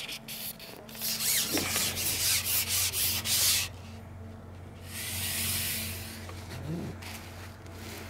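Carbon fishing pole being shipped out, sliding through the hands and over its support with a quick run of rasping rubs, then one longer, smoother rub about five seconds in.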